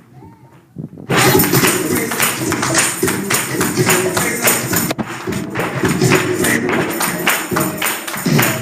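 Loud music with a fast, steady percussive beat starts suddenly about a second in, after a quieter moment.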